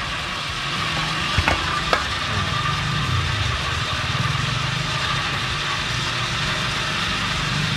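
Electric water pump running steadily and quietly on its new bearing and mechanical seal, building pressure: a constant hum with a steady high whine over it. Two light clicks come about one and a half and two seconds in.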